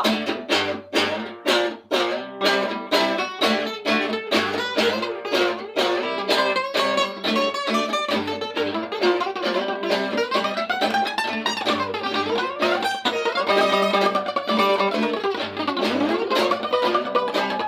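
Acoustic guitar instrumental break: one guitar strums chords steadily while another plays a lead line with bending notes over it.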